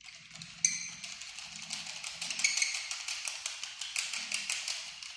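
Hand-whirled sling psychrometer: its spinning thermometer frame rattles and clicks rapidly on the handle pivot, starting a little under a second in, as the wet bulb is ventilated for a reading.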